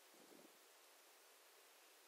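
Near silence: faint steady hiss of the recording's room tone.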